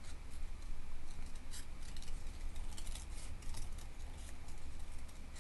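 Scissors snipping through paper in a run of short, irregular snips, cutting out a small shape.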